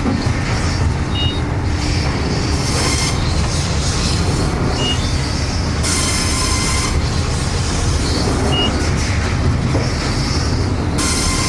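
Circular sawmill running: a Hurdle Magnum LP carriage rolling on its rails past the circle head saw as it cuts cross ties, a steady heavy rumble with bursts of higher noise every few seconds. Three short high beeps come about four seconds apart.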